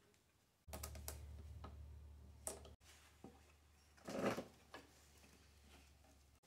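Small clicks and plastic rattles as a lawnmower's plastic fuel tank and its fuel line are worked free and lifted off the engine, with a louder scrape about four seconds in.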